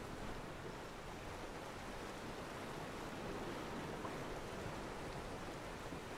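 Ocean water washing around a pier: a steady, even wash of water.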